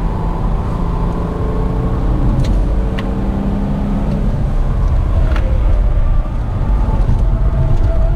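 Car engine and tyre rumble heard from inside the cabin at speed. The engine note falls over the first few seconds as the car slows, with a few sharp clicks. About six seconds in it gets louder and steadier as the car pulls again.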